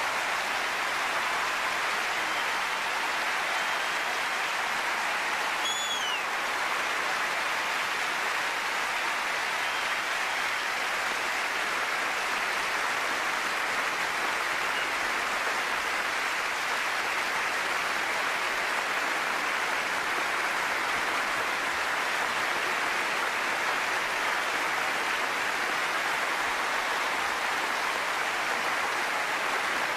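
A large theatre audience applauding steadily, a standing ovation, the clapping dense and even throughout. A brief high whistle rises and falls about six seconds in.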